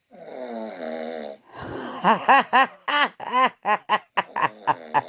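A long, wavering voiced snore, followed from about a second and a half in by hearty laughter in short rising-and-falling 'ha' bursts that get quicker toward the end.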